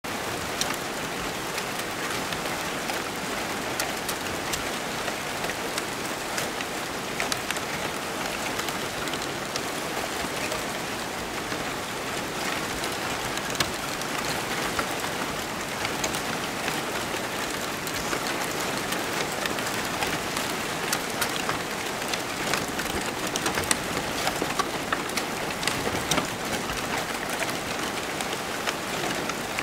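Crumpled brown packing paper crackling and rustling, set in motion by 43 prepared DC motors. The sound is a dense, steady rain-like crackle, with many small sharp crackles scattered throughout.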